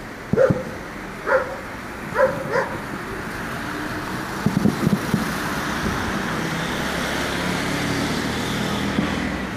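A dog barks four times in the first three seconds. Then the noise of passing road traffic swells, with a few dull thumps in the middle.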